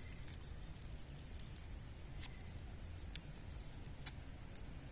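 Faint, scattered clicks and light snaps of dry twigs being handled and laid for a campfire, the sharpest about three seconds in, over a low steady rumble.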